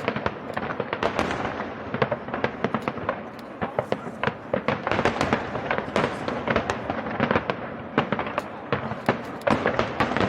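Fireworks going off in rapid succession: a dense run of sharp cracks and bangs, several a second, with no letup.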